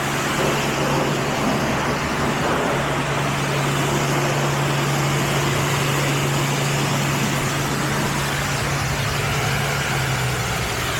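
Automatic car wash equipment running around the car: a steady, loud rushing noise over a low, even hum that stops near the end.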